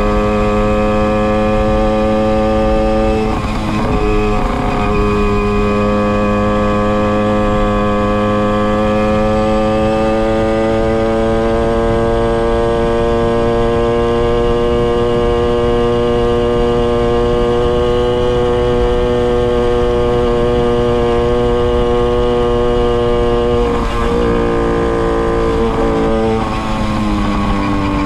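Tomos XL 45 moped's small two-stroke engine running under way through a Tecno Bullet exhaust. Its pitch dips and recovers a few seconds in, climbs slowly and holds steady, then falls back again near the end as the throttle eases.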